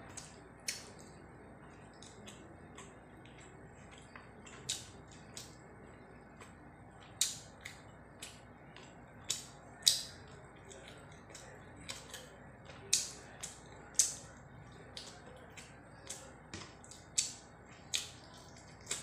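Close-up mukbang eating sounds: wet lip smacks and mouth clicks while chewing mouthfuls of rice and curry eaten by hand. They come as irregular sharp smacks, about one or two a second, with the loudest about ten and fourteen seconds in.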